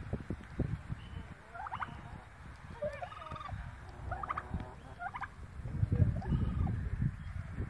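Male domestic turkey gobbling, several short warbling gobbles about a second apart, over a low wind rumble on the microphone.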